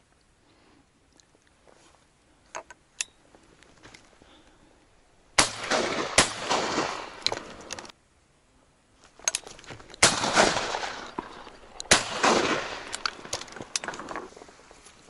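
Shotgun fired at ducks: four sharp reports, the first two about a second apart and the last two about two seconds apart, each followed by a couple of seconds of lingering noise.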